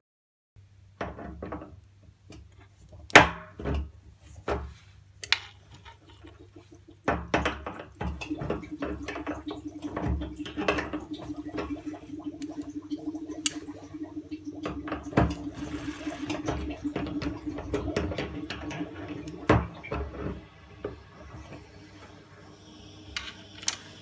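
Pliers clicking and knocking on a radiator drain-off valve as it is loosened, then water running steadily through the opened valve into a hose with a low hum, draining the central heating system.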